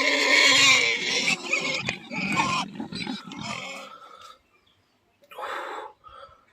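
Pigs squealing loudly, then grunting, with one more short squeal near the end.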